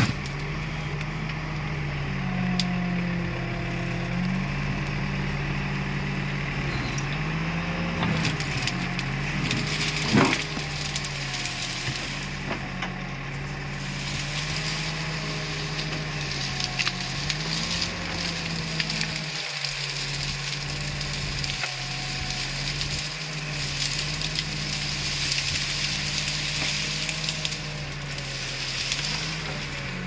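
Escorts Digmax backhoe loader's diesel engine running, its pitch rising and falling as the hydraulics work, while the backhoe bucket drags and crushes dry brush and branches with crackling and occasional sharp snaps.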